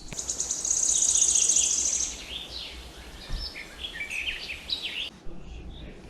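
Songbirds singing: a fast, high, even trill lasting about two seconds, then a string of varied short chirps and whistles that breaks off about five seconds in.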